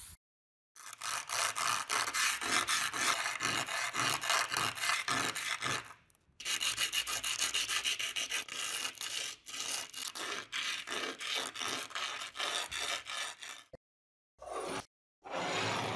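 A metal tool part rubbed by hand over sandpaper in rapid back-and-forth strokes, a dry gritty scraping. It breaks off briefly twice.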